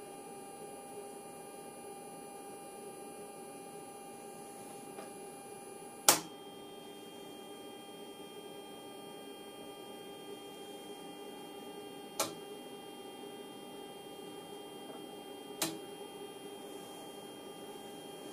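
Steady electrical hum of running bench test equipment, made of several steady tones. Three sharp clicks cut through it, the loudest about six seconds in, the others about twelve and fifteen seconds in.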